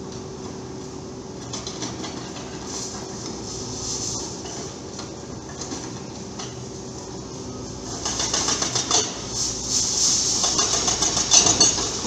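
Excavator engine running steadily, then from about eight seconds in a hydraulic breaker hammering concrete in rapid, continuous blows.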